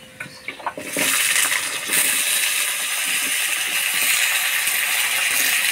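Chopped vegetables tipped into hot oil and tempering spices in a kadai. A few light clicks come first, then loud, steady sizzling starts about a second in and swells again a second later.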